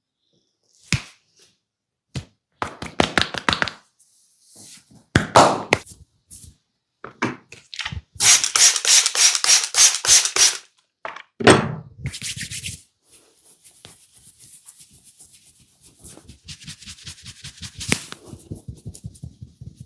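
Hands massaging a person: bursts of quick rubbing and tapping strokes with thuds, the longest a fast run of about seven strokes a second, then fainter patting strokes near the end.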